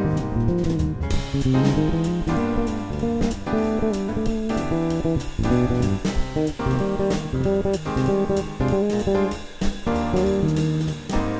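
Six-string electric bass improvising quick jazz lines, played along with a backing track with drums.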